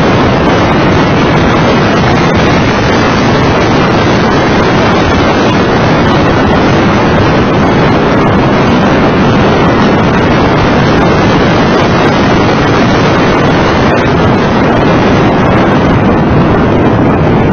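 Steady, loud wind rush on the microphone of an onboard camera on a Mitsubishi FTO GPX at track speed, blended with the car's running engine and tyre noise.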